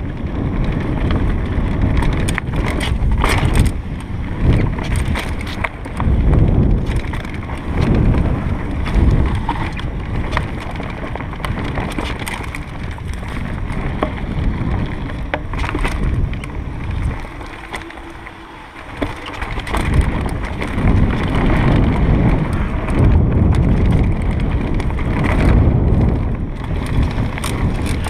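Mountain bike descending dirt singletrack at speed: steady wind buffeting on the microphone, with the tyres rumbling over the trail and frequent sharp clicks and rattles from the bike over bumps. The noise eases for a couple of seconds about two-thirds of the way through, then picks up again.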